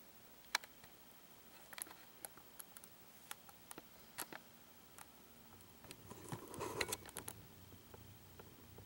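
Faint scattered ticks and taps, then, about six seconds in, a scratchy rustle of cardboard lasting about a second as a cat shifts inside a cardboard box.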